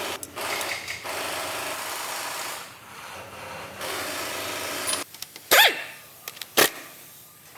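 A power tool runs with a rough, rasping hiss for about five seconds, then stops. A short, loud yelp that rises and falls in pitch follows, then a sharp click.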